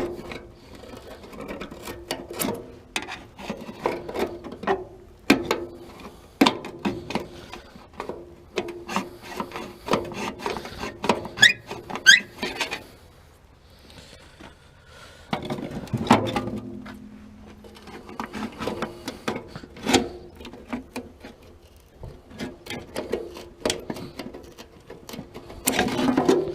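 Baler twine being cut and pulled off a metal feeder bucket: irregular rubbing and scraping with many small knocks and clicks. There is a quieter pause about halfway through.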